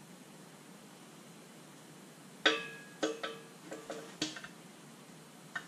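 Metal tools clanking and clinking with a short ring: one sharp clank about halfway through, then several lighter clinks over the next two seconds and one more near the end, after a faint steady hiss.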